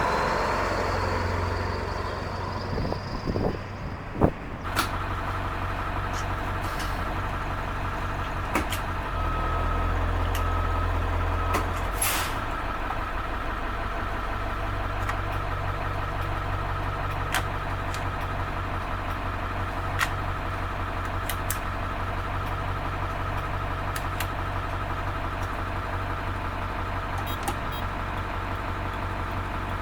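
School bus diesel engine idling steadily, with scattered sharp clicks and a louder knock about four seconds in.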